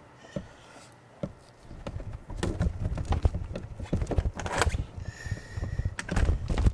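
Irregular light knocks and clicks of hand work with small hard parts, sparse at first and getting busier after about two seconds, over a low rumble.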